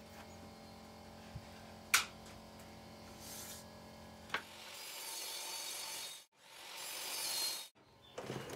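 Sharp metal clicks from a table saw's rip fence being slid and locked, followed by a hissing rush that swells, cuts off, swells again and stops abruptly.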